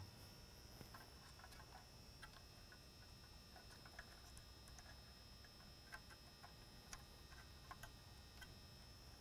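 Near silence with faint, scattered light clicks as a rubber weathering gasket is pressed by hand into the channel of a Whelen Century Series mini lightbar.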